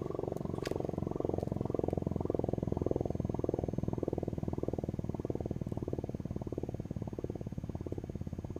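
Canadian CLM 10/12 air raid siren winding down near the end of its run: a low, rapidly pulsing growl that slowly fades.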